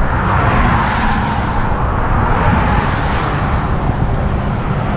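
Highway traffic passing close by, swelling about half a second in and again around three seconds, over a steady low rumble.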